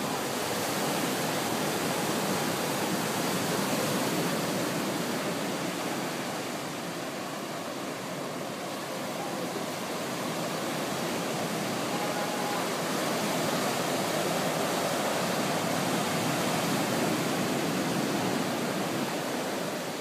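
Ocean surf breaking and washing up a sandy beach: a steady rushing that swells and eases slowly, lower in the middle and fuller again in the second half.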